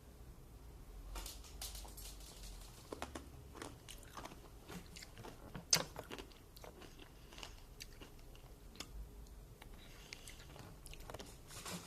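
A mouthful of Nerds, small hard sugar candies, being chewed: faint, irregular crunching, with one louder crunch about six seconds in.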